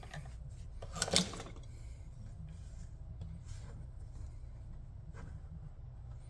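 The small main blade of a keychain multi-tool cutting into leather: one short rasping cut about a second in, then a few faint scrapes, over a steady low hum.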